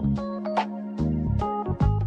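Background music: held keyboard chords with a beat of sharp percussive hits.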